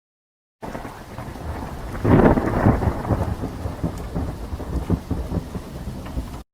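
Thunderstorm sound effect: steady rain hiss with a loud rumble of thunder swelling about two seconds in. It starts half a second in and cuts off abruptly near the end.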